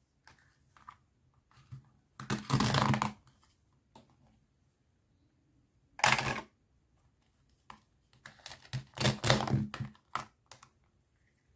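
Plastic toy fruit and vegetable pieces clattering and clicking as they are handled in a plastic crate and set on plastic cutting boards, in a few short bursts of rattling. Near the end a toy knife cuts a plastic toy eggplant apart.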